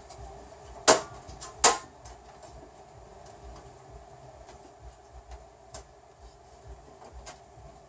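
Two sharp metal clicks about a second in, under a second apart, then a few faint ticks: a stamped-metal motherboard I/O shield being pressed and snapped into the rear opening of a computer case, a poor fit.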